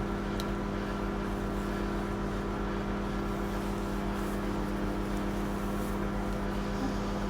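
Microwave oven running, a steady even hum.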